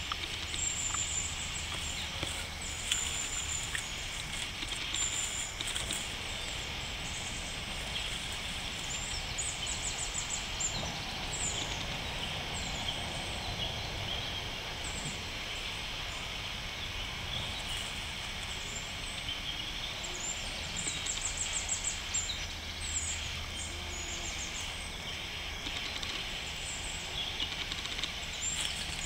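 Outdoor ambience: repeated high-pitched chirps and short trills over a steady hiss.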